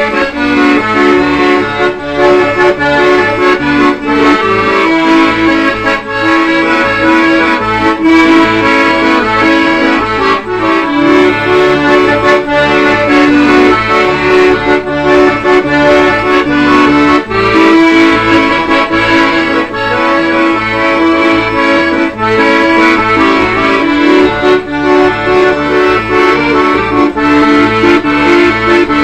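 Instrumental background music: held chords over a steady, regularly pulsing bass line.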